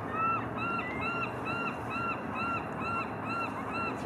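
An animal calling in a regular series of about ten short, arching cries, a little over two a second, each the same shape and pitch.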